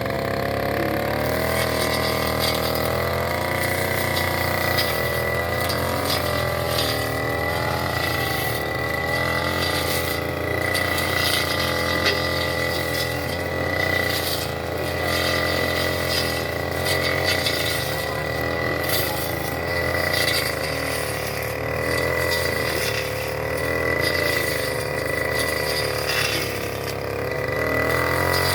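Brush cutter's small engine running steadily, its pitch wavering slightly.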